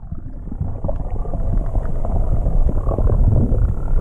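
Muffled underwater rumbling and bubbling with a fine crackle, heard through a camera submerged beside a boat hull; it swells over the first couple of seconds and then holds steady.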